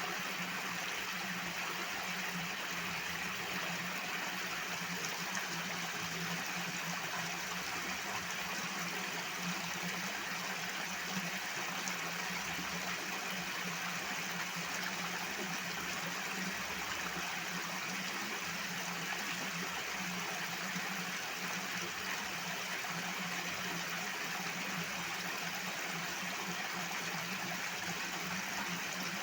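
Water rushing in a loud, steady flow, with a steady low hum underneath.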